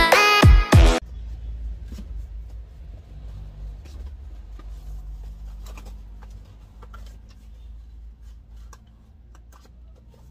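Electronic music that cuts off abruptly about a second in, then a low steady hum with faint scattered clicks and rustles of small cardboard parts boxes being handled.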